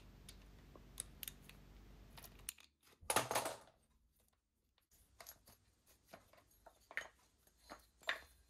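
Faint scattered metallic clicks and handling noises as the timing-belt tensioner is taken off a Honda ST1100 V4 engine and the toothed belt pulled from its pulleys, with one louder brief sound about three seconds in.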